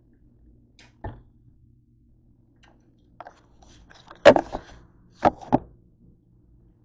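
Knocks and clatter of things being handled and set down on a kitchen counter. There is a light knock about a second in, a louder clatter about four seconds in, and two sharp knocks close together a second later.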